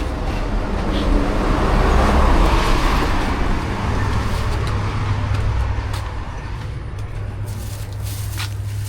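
Motor vehicle driving along a road: a steady low engine hum under road and wind rush, which swells about two seconds in and then eases off.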